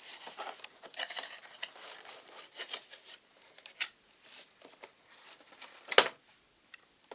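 Cardboard and plastic packaging rustling and scraping as a boxed model is slid out of its box, with scattered small clicks and one sharp knock about six seconds in.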